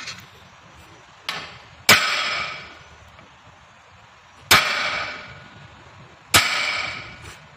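Hammer blows on a steel punch set in the eye of a truck torque rod, driving out the bushing: a light tap, then three heavy strikes about two seconds apart, each ringing out for about a second.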